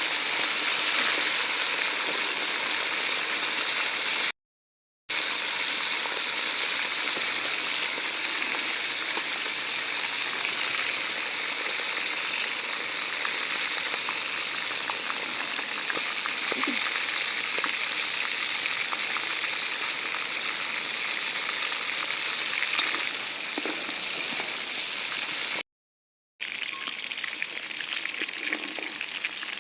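Food deep-frying in hot oil: a steady, dense sizzling hiss, broken twice by short dropouts to silence, and a little quieter after the second one.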